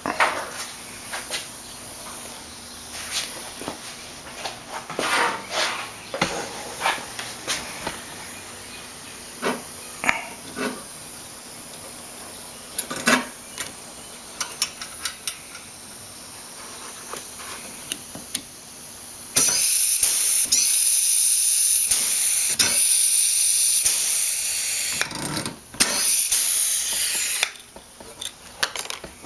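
Small metal fastener parts clicking and knocking as they are handled, then a pneumatic pop rivet gun hissing loudly for about five seconds, stopping briefly, and hissing again for about a second and a half while riveting cam lock spring assemblies.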